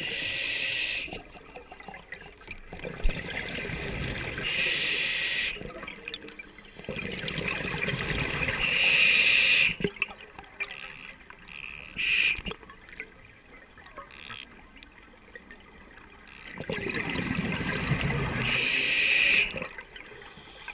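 Scuba diver breathing through a regulator underwater. A sharp hiss on each inhale alternates with a rushing, bubbling exhale, repeating every four to five seconds.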